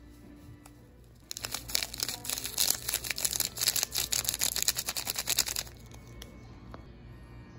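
Foil sachet crinkling as it is shaken and squeezed to empty powder into a mug, a dense crackling that starts about a second in and stops suddenly about four seconds later.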